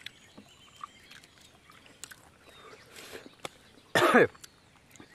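A man coughs once, short and loud with a falling voiced tone, about four seconds in. Faint scattered clicks and smacks of eating come before it.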